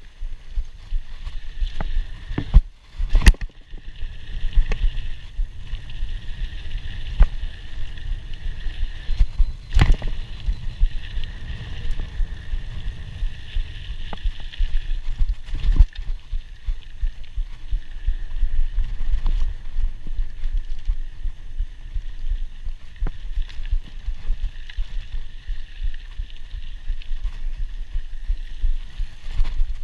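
2016 Scott Scale 960 hardtail mountain bike ridden over a dirt pump track: a constant low rumble of wind and tyres on dirt, rattling from the bike, and a steady high hiss that comes and goes. A few sharp knocks from bumps in the track stand out above it.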